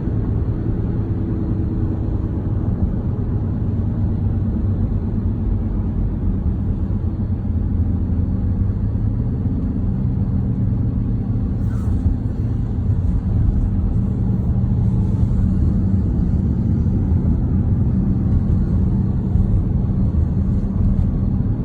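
Vehicle driving at highway speed: a steady low rumble of road and engine noise, getting a little louder after about thirteen seconds.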